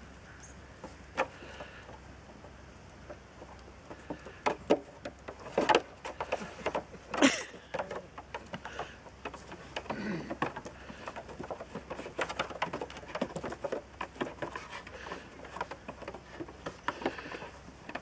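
Pygora goats' hooves knocking and clattering on a wooden table and plank ramp as they climb and jump about. The knocks are scattered, with the loudest around five to seven seconds in and quicker clatter in the second half.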